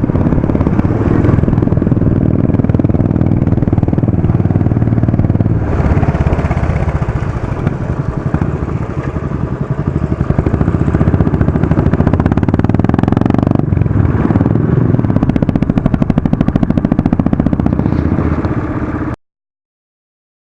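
Single-cylinder engine of a Royal Enfield Classic 500 running while the motorcycle is ridden. The sound shifts about six and again about fourteen seconds in, then cuts off suddenly near the end.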